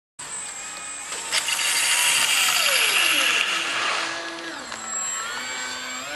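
Electric motor and propeller of an RC model aerobatic plane running up and flying. It grows loud about a second and a half in, then its pitch slides down and changes with the throttle as the plane flies across a large hall.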